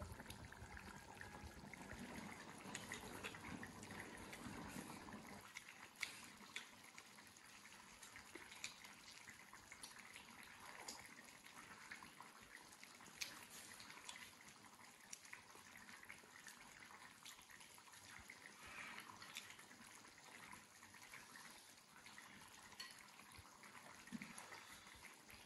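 Near silence: faint steady hiss with a few scattered soft clicks.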